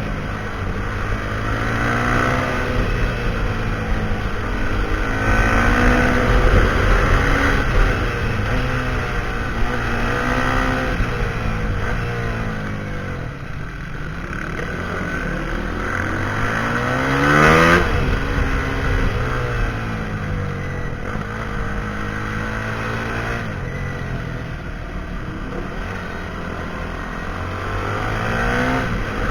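Husqvarna SMR 511 supermoto's single-cylinder engine through a full Akrapovič exhaust, revving up and dropping back again and again. The highest and loudest rev comes a little past halfway, then falls off sharply.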